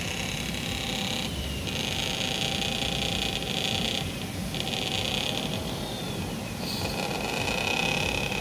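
Radio-controlled tipper truck's electric drive whining in spurts as it drives across sand, the whine starting and stopping every second or two and falling in pitch as it slows, over a steady noisy outdoor background.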